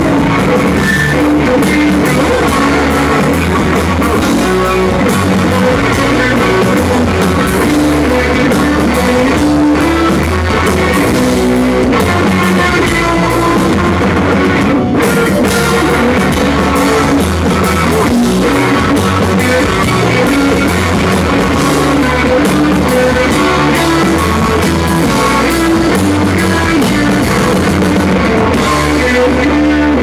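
Live rock band playing loudly: electric guitars and a drum kit driving a steady beat, with no singing.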